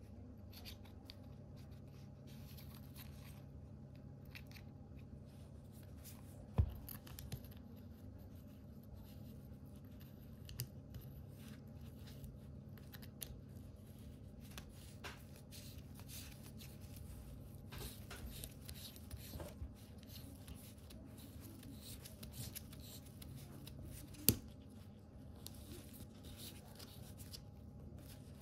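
Faint handling sounds of an Auto Chinon 35mm lens being reassembled by hand: light rubbing and small clicks as the lens unit is fitted and turned in the barrel. Two sharper clicks stand out, one about a quarter of the way in and one near the end.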